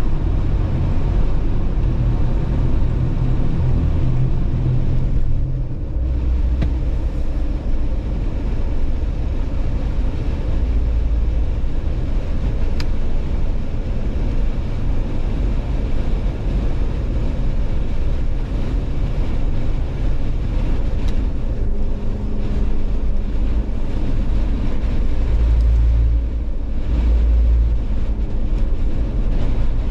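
A Jeep driving at highway speed: a steady, low rumble of road and driving noise with no break.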